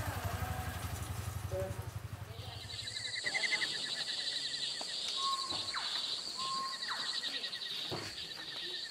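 A low, evenly pulsing engine idles for about the first three seconds, then fades out. After that comes a steady outdoor ambience of rapid, high chirring and chirping, with a few short calls and falling cries.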